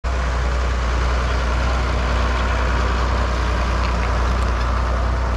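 Farm tractor engine running steadily as it pulls a hayride wagon, a deep, heavy low hum with a rushing noise above it.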